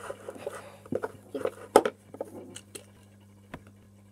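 Metal spoon stirring and scraping wet flour dough in a plastic bowl: irregular clicks and soft squishy scrapes, busiest in the first two seconds, then only a single click.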